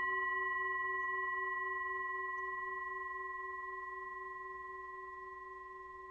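A struck bell-like metal tone ringing out and fading steadily: a low note with a few higher overtones held together, the low note pulsing slightly.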